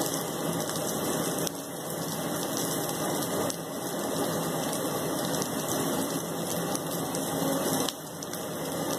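Shami kababs shallow-frying in hot oil in a frying pan: a steady sizzle.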